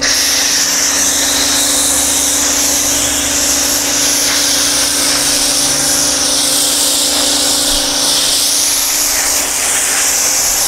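Active 2.0 electric pressure washer spraying through a McKillan's wide-mouth foam cannon: a loud, steady hiss of foam spray over a steady motor hum, cutting in suddenly at the start.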